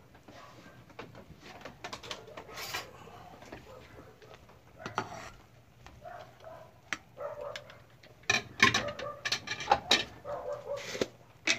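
A metal ladle stirs and knocks in an aluminium soup pot, among scattered clatter. A dog barks and whines on and off, loudest from about eight seconds in.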